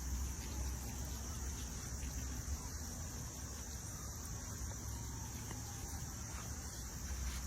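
Insects chirring steadily in a high, even drone over a low steady rumble.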